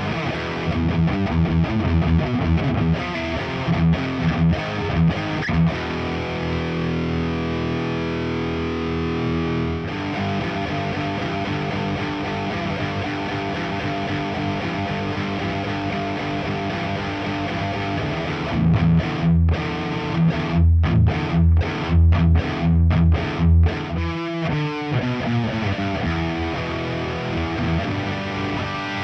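Nik Huber Krautster I electric guitar with a Häussel pickup, played through a high-gain Diezel VH4 tube amp and a miked Marshall 4x12 cab with Celestion speakers: distorted riffing. There are fast chopped notes, then chords ringing out for a few seconds. Near the end come sharp stop-start stabs, then a falling slide down the neck.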